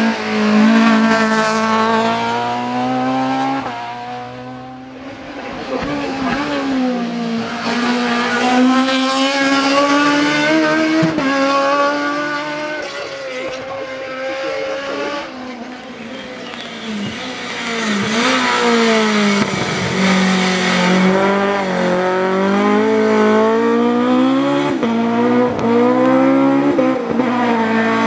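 A touring car's racing engine under hard acceleration. The revs repeatedly climb and then drop back as it changes gear, with a couple of brief lulls in between.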